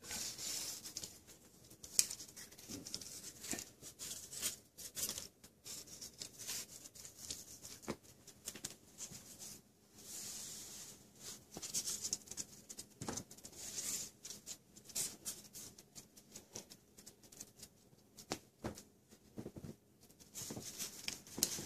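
Six-week-old West Highland White Terrier puppies playing with a scrap of paper: many small, irregular ticks from claws on a tile floor, mixed with short rustles and crinkles of paper being pawed and tugged.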